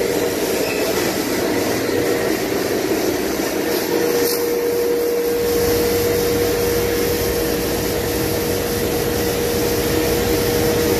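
A CNC router's spindle driving a sanding wheel over the surface of a flat board, with the machine's dust extraction drawing through its hoses: a steady, loud whirring noise with one constant hum. The low rumble gets stronger about five seconds in.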